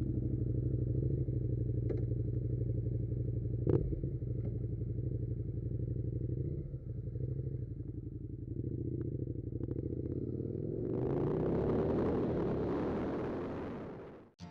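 Suzuki SV650 V-twin engine running at low speed with a steady note, then accelerating about eleven seconds in, its pitch climbing as wind and road noise swell. A single sharp knock sounds about four seconds in.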